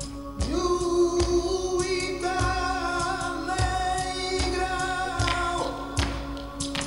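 Flamenco singing of a siguiriya: one long, wavering sung phrase starting about half a second in and dying away near the end, over regular knocks marking the beat about once a second.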